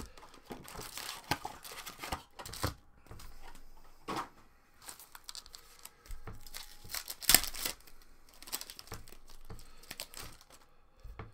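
Foil wrappers of Upper Deck Series 2 hockey card packs being torn open and crinkled by hand, with cards handled and flicked. Irregular crinkles and rips, the loudest a little past seven seconds in.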